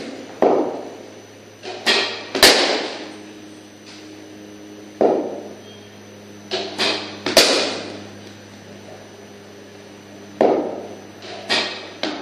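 Cricket bat striking balls in a practice net: sharp cracks with a short ringing echo, coming in clusters about every five seconds, with softer dull thuds between them. The loudest cracks come about two and a half and seven and a half seconds in.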